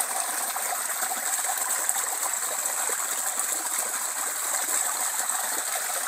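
Shallow stream flowing over a small natural weir into a pool: a steady rush and trickle of running water.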